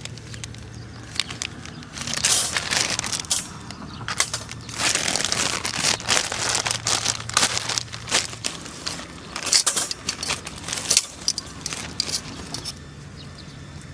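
A plastic bag of barbecue charcoal crinkling and rustling in repeated bursts as it is rummaged and lumps of charcoal are lifted out with tongs. The handling stops near the end.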